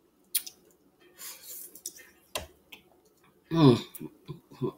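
Close-miked eating sounds of a sauce-covered boiled egg: wet chewing and mouth smacks with sharp clicks. A short voiced sound from the eater comes about three and a half seconds in, the loudest moment.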